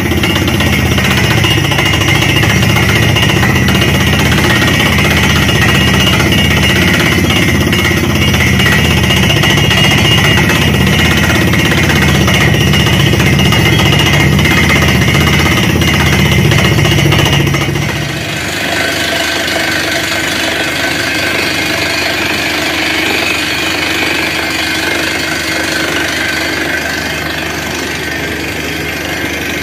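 Truck-mounted borewell drilling rig drilling rock, a loud rapid hammering with a rush of compressed air blowing dust and cuttings out of the borehole. About two-thirds of the way through it drops suddenly to a quieter, steadier machine running.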